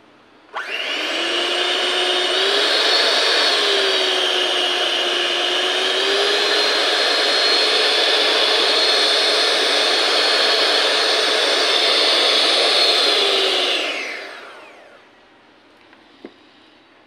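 Imarflex IMX-250 electric hand mixer switched on, its motor running with a steady whine and a slight shift in pitch a few seconds in. It is switched off and winds down over about a second, with a faint click near the end.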